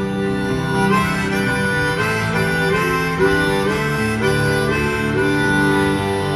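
A live rock band plays an instrumental passage, with a harmonica carrying the melody over guitar and rhythm section.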